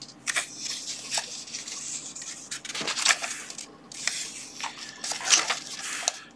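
Pages of a spiral-bound paperback being turned and smoothed flat by hand: a few short papery rustles and light taps.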